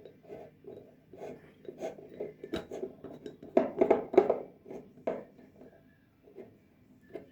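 Irregular taps, knocks and scrapes of kitchen containers and utensils being handled, loudest in a cluster around the middle and thinning out near the end.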